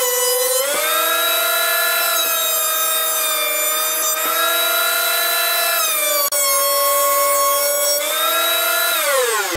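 Craftsman benchtop thickness planer running with a high motor whine as a pine pallet board is fed through. The pitch drops while the cutterhead is cutting, rises when the board clears, and falls away near the end as the motor is switched off.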